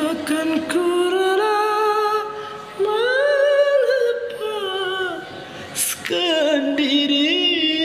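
A man singing unaccompanied in a high, dangdut-style voice, holding long notes with wavering ornaments. There are two short breaks, about three and six seconds in.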